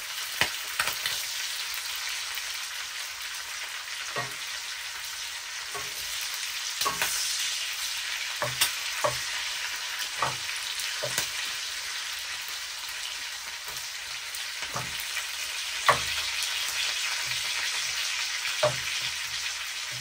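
Bacon and mini sausages sizzling steadily as they fry, the bacon turning crisp, with occasional short knocks of a utensil stirring them around.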